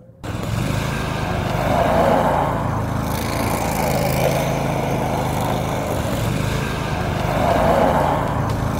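Engine of an Argo Avenger eight-wheel amphibious ATV running as it drives across lake ice. The engine swells about two seconds in and again near the end.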